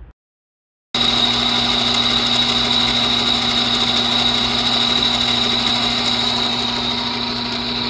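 Metal lathe turning a recycled-aluminium sleeve down to size: a steady machine sound with a high whine, starting abruptly about a second in.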